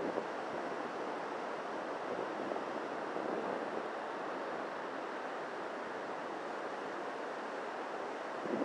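Surf breaking along a sandy beach, a steady rush of waves.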